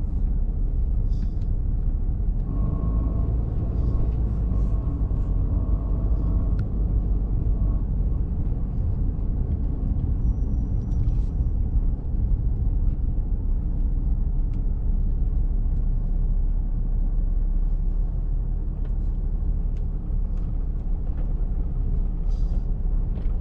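Steady low rumble of a pickup truck driving, heard from inside the cab: engine and tyre noise on the road.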